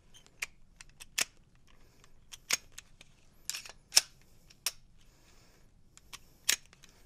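Irregular sharp clicks and clacks of a Glock pistol's slide and frame being worked by hand, about nine in all, during a struggling attempt to take the pistol apart.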